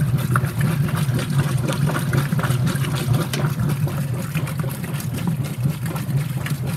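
Whirlpool WTW5300SQ0 direct-drive top-load washing machine on low agitation: a steady motor hum with water sloshing in the tub as the agitator swings back and forth.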